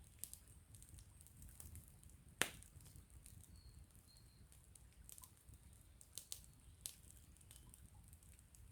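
Wood campfire crackling faintly, with a few sharp pops: the loudest about two and a half seconds in, and a quick cluster of them between six and seven seconds in. Under them runs a low steady rumble.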